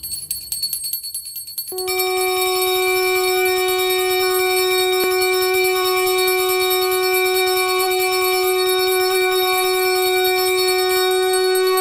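Conch shell (shankh) blown in one long steady note of about ten seconds, its pitch lifting slightly near the end, sounded as the puja and arati begin. It is preceded by about two seconds of rapid high ringing.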